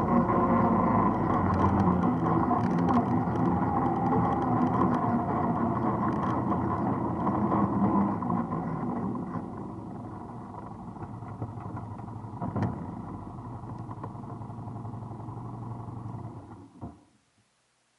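ATV engine running as the machine rides along a grassy track, easing off about halfway to a lower, steady run, with a single knock. The engine sound then cuts out abruptly near the end.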